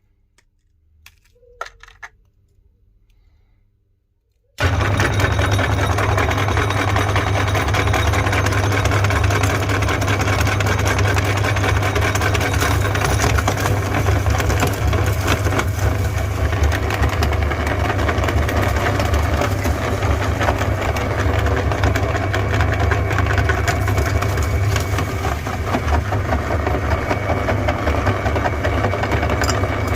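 A few light clicks, then an electric meat grinder switches on abruptly about four and a half seconds in. It runs steadily with a loud motor hum and dense crackling as it grinds mini chocolate ice cream cones.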